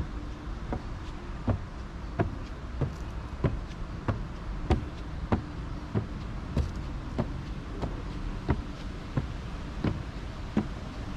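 Footsteps climbing wooden stair treads, an even knock about every two-thirds of a second, over a steady low background hum.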